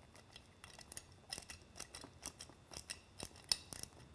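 Hand Torx screwdriver tightening a bolt into the bracket of an LED light housing: a run of faint, irregular metallic clicks that grows busier after about a second.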